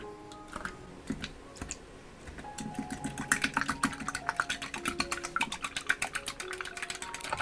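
Coil whisk beating eggs in a glass bowl, the wire clicking against the glass: a few scattered clicks at first, then from about three seconds in a fast, steady run of clicks.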